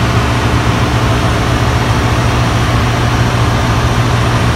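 Loud, steady engine-room machinery noise with a constant low hum, from the running fuel oil purifiers (centrifugal separators) and the surrounding ship's engine-room plant.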